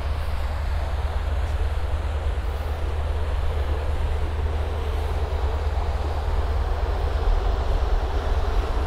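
Steady outdoor noise: low wind rumble buffeting the microphone over a continuous wash of traffic.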